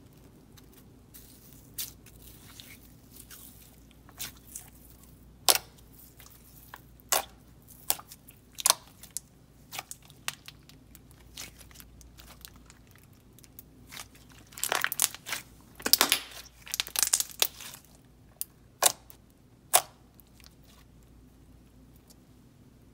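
Glossy, clicky Elmer's Unicorn Magic slime being kneaded and pressed by hand, giving sharp scattered clicks and pops, with a dense run of them a little past the middle.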